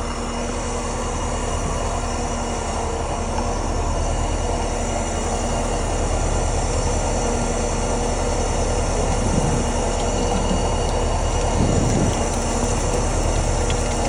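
Concrete line pump's engine running at a steady idle, a constant low drone with no pump strokes or knocks.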